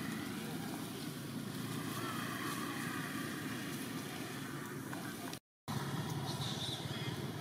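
Steady low outdoor rumble, like a distant engine, with a few faint chirps. The sound cuts out for a moment about five and a half seconds in.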